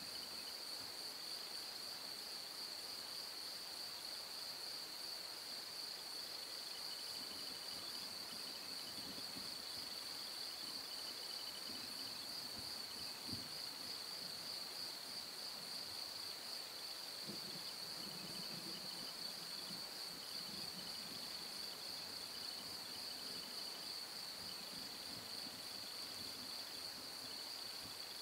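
Crickets chirping in a steady, high-pitched trill.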